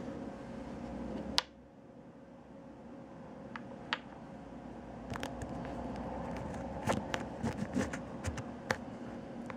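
Light clicks and taps of fingers handling plastic cards in the slots of a leather wallet, clustered in the second half. They play over a steady background hum that drops suddenly after a sharp click about a second and a half in.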